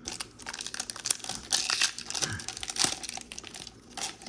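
Foil Pokémon booster pack wrapper crinkling and tearing as it is ripped open, with a dense run of sharp crackles that is loudest about one and a half to two seconds in.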